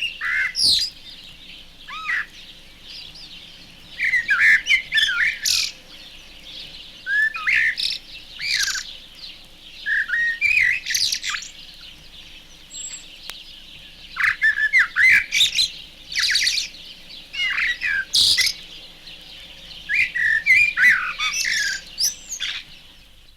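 Male blackbird singing its sub-song: a soft, rambling warble given in halting phrases of a second or two with short pauses between them, sweeping over a wide range of pitch.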